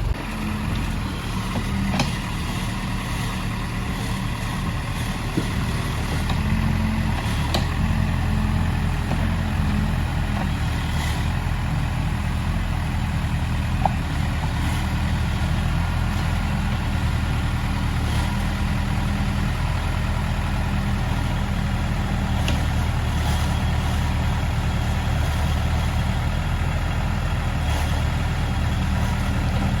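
Heavy diesel engine running steadily at low revs, with a few faint clicks and knocks over it.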